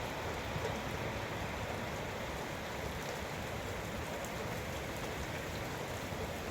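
Steady rain falling during a severe storm, an even, unbroken rush of noise.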